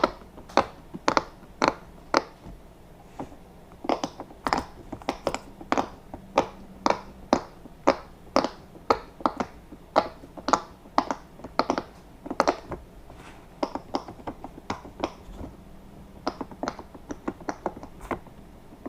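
Bubbles of a silicone pop-it fidget toy being pressed one after another: a run of short pops, about two or three a second, with a short lull about three seconds in.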